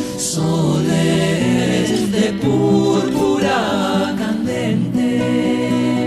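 Recorded band music: a song with held chords that shift every half second to a second.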